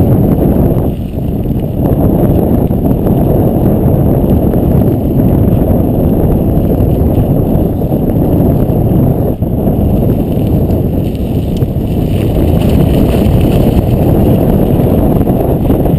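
Wind buffeting a GoPro's microphone, mixed with tyre rumble, as a bicycle rides fast down a snow-dusted dirt road. The noise is loud and steady, with no engine note.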